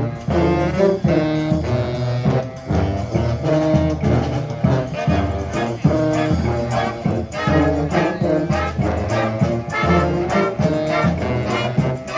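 A street brass band playing a song live, with horns holding and moving between notes over a heavy bass line and a steady beat.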